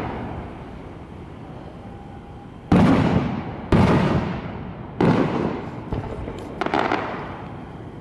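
Aerial firework shells bursting overhead: three loud booms about a second apart in the middle, each rumbling away, then a quick cluster of smaller bangs near the end.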